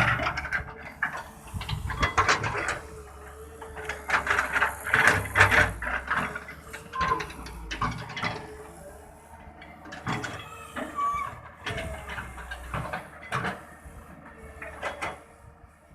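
Samsung SE170 W3 excavator at work: its engine runs steadily under irregular metallic clanks and knocks, with a few short high squeals.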